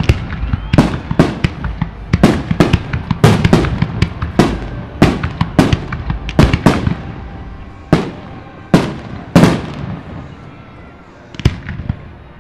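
Aerial firework shells bursting overhead, a rapid volley of booms for the first half, then a few single bursts spaced further apart as the volley thins out near the end.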